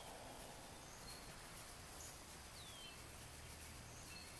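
Quiet outdoor ambience: a steady faint hiss with a few faint bird chirps. The clearest is a short whistle falling in pitch about two and a half seconds in.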